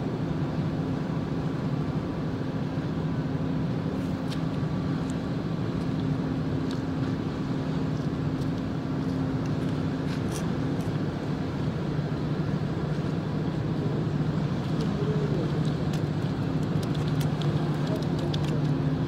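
A motor running steadily at a constant low pitch, with a few faint clicks scattered through.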